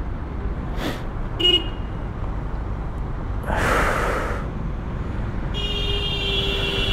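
Steady low roadside traffic rumble with vehicle horns: a short toot about one and a half seconds in and a longer, steady horn near the end. A breathy whoosh sounds about halfway through.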